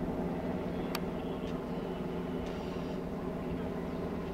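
Steady engine drone from a motor running throughout, with one sharp click about a second in.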